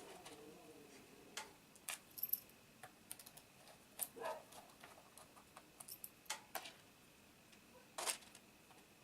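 Scattered light clicks and taps of laptop parts and small screws being handled, about a dozen at irregular intervals, the sharpest near the end.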